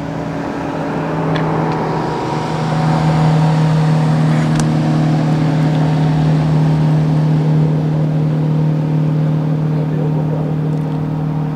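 An engine running at a steady speed, a low, even drone that swells slightly over the first few seconds, with a couple of faint clicks.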